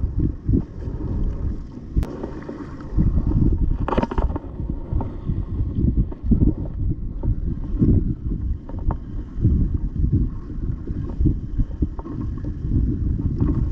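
Wind buffeting the microphone: a loud, uneven low rumble with gusty swells.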